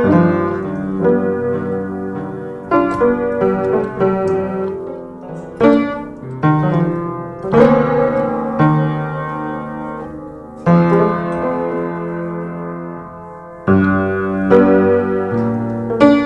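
Piano music: chords struck every two to three seconds and left to ring out, with single notes played in between.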